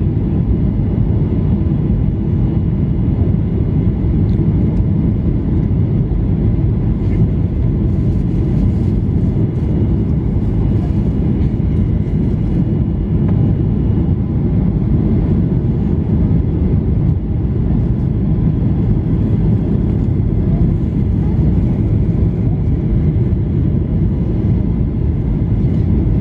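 Steady cabin noise inside a Boeing 737-800 from its CFM56 engines and the airflow past the fuselage: a dense, even rumble with a faint steady high whine above it.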